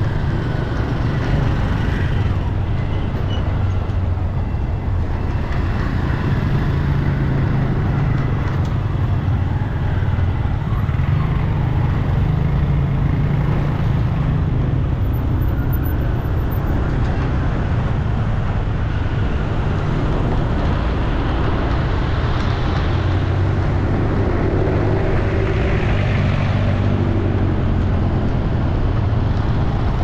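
Steady road traffic noise with a deep, continuous rumble.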